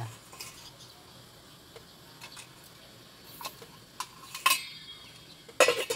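Metal kitchenware clinking and knocking as a stainless-steel lid is fetched and set over a metal bowl of sticky rice: scattered light clicks, a ringing metallic clink about four and a half seconds in, and a louder clatter near the end.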